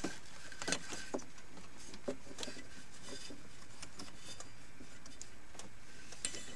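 A few faint, short clicks and light taps over a steady low hiss.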